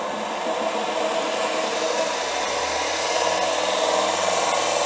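A Biltema 200 W combination belt sander and bench grinder runs unloaded, its sanding belt and grinding wheel spinning freely. It makes a steady, quite noisy mechanical whir that grows somewhat louder over the first few seconds. The owner guesses most of the noise comes from the belt side.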